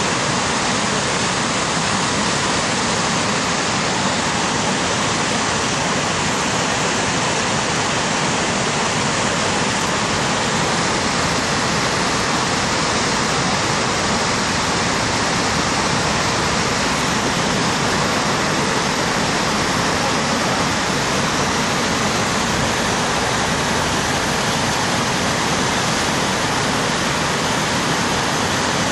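Steady rushing roar of whitewater from a river in flood, breaking over a standing wave.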